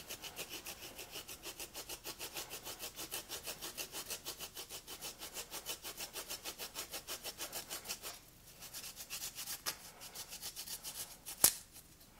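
Peeled fresh ginger rubbed back and forth on a fine stainless-steel rasp grater (citrus zester): quick, even scraping strokes, about five a second, with a short pause about eight seconds in. A single sharp knock sounds near the end.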